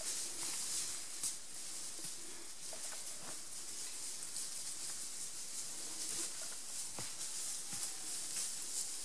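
Woodland ambience: a steady high hiss with scattered faint rustles and small clicks from leaf litter and twigs.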